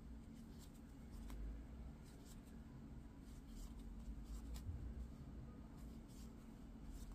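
Faint scratching and scattered soft ticks of a metal crochet hook pulling yarn through stitches, over a low steady hum.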